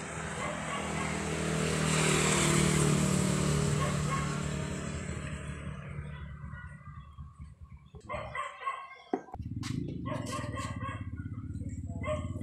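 A motor vehicle passing by, its engine and road noise swelling to a peak a couple of seconds in and fading away by about six seconds. Near the end come a few sharp clicks and a short, broken, pitched call.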